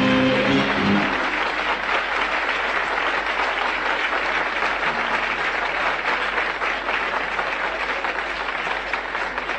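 The accompanying ensemble's last note cuts off about a second in, and a large live audience applauds steadily through the rest.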